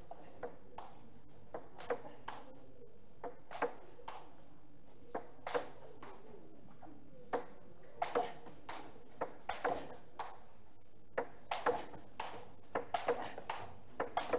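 Table tennis ball clicking off the bats and bouncing on the table through a rally. The clicks come at uneven intervals and grow more frequent in the second half.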